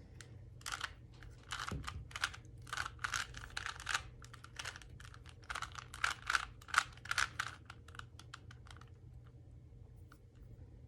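3x3 Rubik's Cube being turned fast by hand: a quick run of plastic clicks and clacks as the layers snap round, which thins out about nine seconds in.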